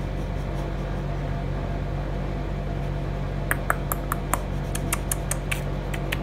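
Green felt-tip sketch pen working on drawing paper: from about halfway through, quick short ticks a few times a second as the tip strokes and taps the paper, over a steady low hum.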